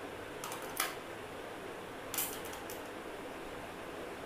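Small plastic toy pieces being handled, giving two short clusters of clicks and rattles, one near the start and one about two seconds in, over a steady background hiss.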